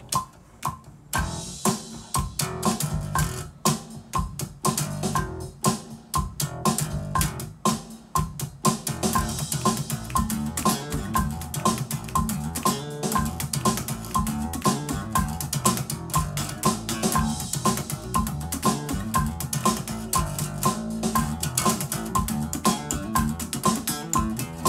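Electric bass guitar played fingerstyle through a homemade SSM2165 compressor. About nine seconds in, a backing track with a steady beat comes in under the bass line.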